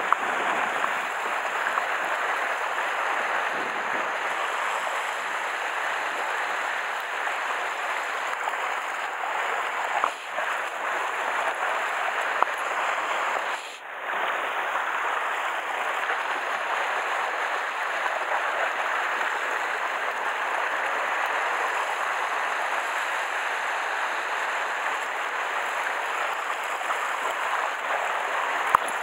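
Sea water washing and lapping against a rocky shoreline: a steady rushing hiss with no clear individual wave breaks, dipping briefly twice.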